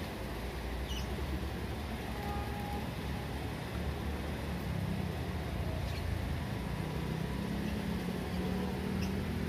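Steady low engine rumble that swells slightly toward the end, with a few faint bird chirps above it.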